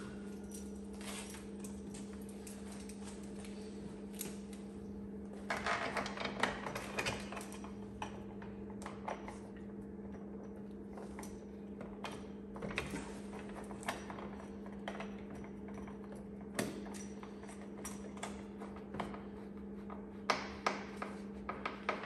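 Scattered metal clinks and knocks of bolts and door hardware being handled and fitted, with a busier patch of clatter about six seconds in and again near the end, over a steady low hum.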